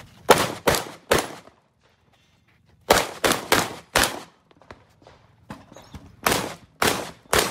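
Shots from a Benelli M2 SP semi-automatic shotgun fired in quick strings: three rapid shots, a pause of over a second, four more, another pause, then three more.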